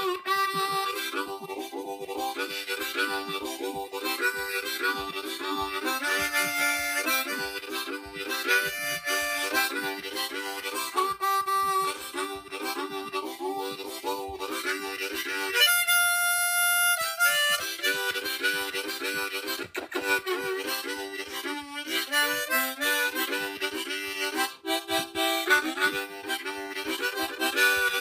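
Harmonica played with both hands cupped around it, a repeating rhythmic chord pattern, broken a little past halfway by one long held high note before the pattern resumes.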